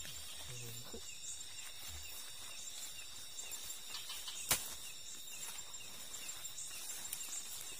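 Night-time insect chorus, a steady high-pitched trilling, with one sharp click about halfway through.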